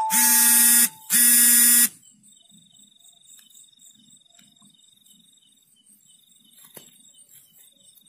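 Two loud, harsh electronic buzzes, each just under a second long and a quarter-second apart, at one steady low pitch. They are followed by the faint, steady high trill of night insects.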